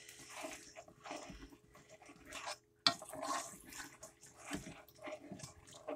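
Stirring carrots and mushrooms in broth and red wine in a pot: wet swishing and scraping in irregular strokes, with a sharp clink about three seconds in.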